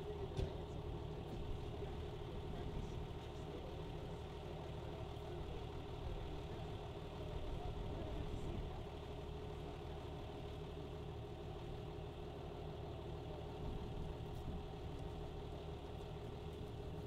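An engine running steadily at idle, an even hum that holds the same pitch throughout, with a few faint clicks.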